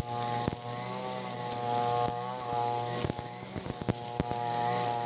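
Ogawa 26cc brush cutter engine running at full throttle, its pitch wavering slightly under load as the spinning 2.2 mm round nylon trimmer line cuts long, thick grass. A high swish swells about once a second with each sweep of the line through the grass.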